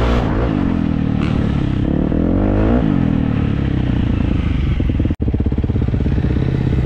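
Off-road motorcycle engine running and revving, its pitch rising and falling several times; the sound drops out for an instant about five seconds in, then the engine carries on.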